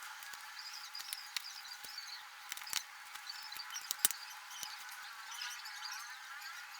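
Faint, sparse clicks and light taps of small speaker parts being handled during reassembly, over a thin high hiss.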